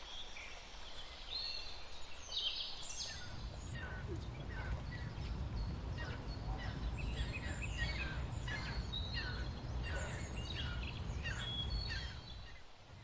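Several birds chirping and calling in short, repeated notes, over a steady low rumble that dies away near the end.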